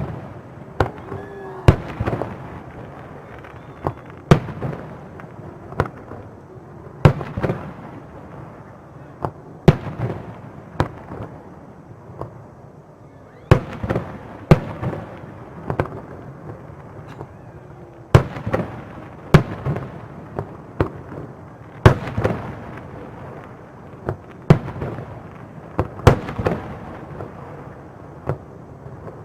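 Aerial fireworks shells bursting in a display: sharp bangs at irregular intervals, roughly one every second or two, each trailed by a rumbling echo.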